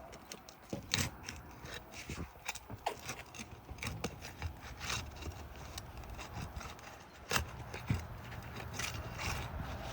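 Old architectural asphalt shingle being pried and lifted off the roof, its sealant strip tearing loose, with irregular scraping and sharp snaps and clicks; the loudest snaps come about a second in and twice near seven to eight seconds in.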